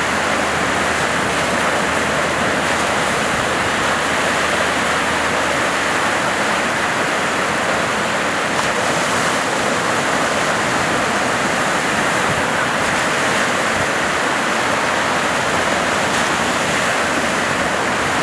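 Rough ocean surf breaking, a steady unbroken rushing wash of waves.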